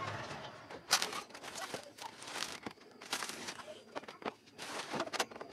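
Irregular scraping, knocking and rustling of a homemade room cooler, its fridge condenser coil attached, being handled and turned by hand.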